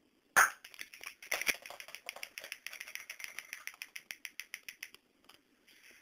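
A small charge set off by a homemade timer detonator: one sharp pop about a third of a second in, then rapid crackling of about six clicks a second that stops suddenly about five seconds in.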